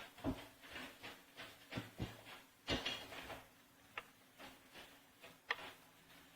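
Scattered light knocks, taps and brief scrapes of objects being handled, irregular and unrhythmic. The sharpest knocks come about a second in, near three seconds in and about five and a half seconds in.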